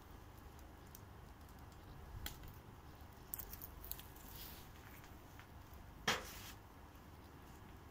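Faint scattered clicks and grinding from a hand pepper grinder being twisted over a pot. One sharp knock comes about six seconds in.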